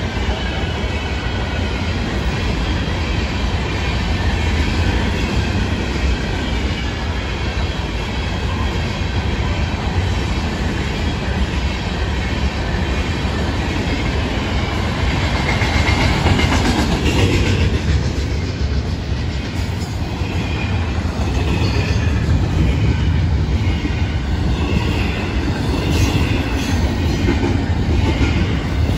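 Freight train cars, covered hoppers and then double-stack container well cars, rolling past at steady speed: a continuous rumble and clatter of steel wheels on rail.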